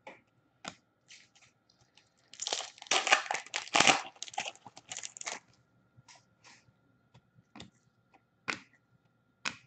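An Upper Deck hockey-card pack wrapper being torn open and crinkled for about three seconds, starting a couple of seconds in. Before and after come scattered soft clicks and slides as the cards are handled and thumbed through.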